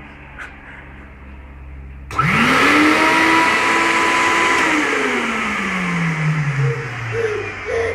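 Vacuum cleaner switched on about two seconds in: its motor whines up to speed, runs steadily for a couple of seconds, then winds down with a slowly falling pitch.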